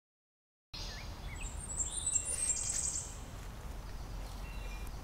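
Silence for under a second, then birds chirping and trilling over a steady low background rumble; the bird calls are busiest in the middle and thin out to a few short chirps.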